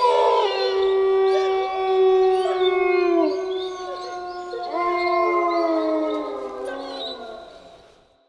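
A pack of wolves howling in chorus: several long, overlapping howls at different pitches, some sliding downward. The chorus fades out near the end.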